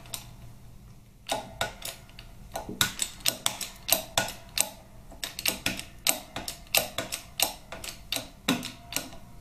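Workshop press forcing the cam bearing and camshafts out of a Harley-Davidson Twin Cam cam plate: a run of sharp clicks, about three a second, beginning about a second in.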